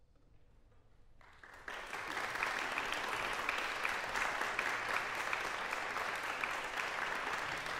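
Audience applause. After about a second of near silence, clapping breaks out, swells within half a second and continues steadily.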